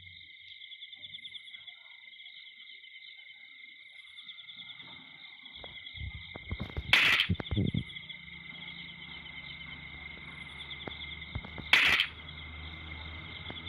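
A steady, high, fast-pulsing insect chorus, like crickets trilling. Two loud, short noisy bursts come about 7 and 12 seconds in, and a low steady hum joins about 6 seconds in.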